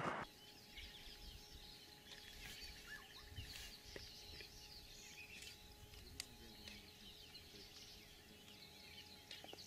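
Faint chorus of small birds chirping and twittering in the bush, over two faint steady tones. A louder rush of noise cuts off right at the start.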